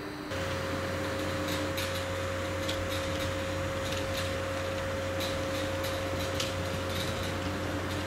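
Steady electric hum with a constant mid-pitched whine, typical of a TGV high-speed train's traction and cooling equipment, over a noise bed with scattered faint clicks. It sets in suddenly just after the start.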